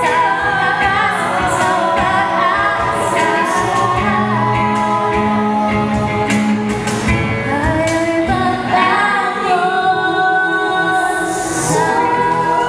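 Live group singing through microphones, men's and women's voices together, accompanied by acoustic guitars.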